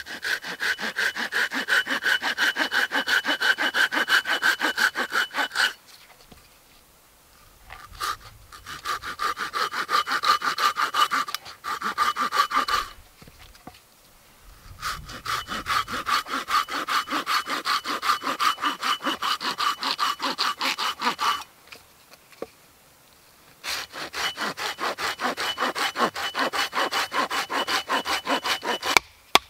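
Thin-bladed hand saw cutting through a small log on a stump: quick, even back-and-forth strokes in four long runs, broken by short pauses.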